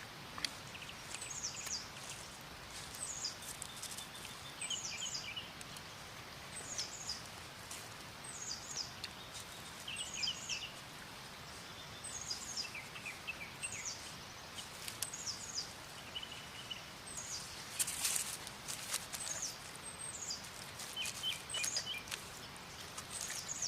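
Wild songbirds calling over a steady outdoor hiss: short, high, falling chirps in small groups about once a second, with some lower chirps between them. Scattered clicks, and a louder cluster of them about two-thirds of the way through.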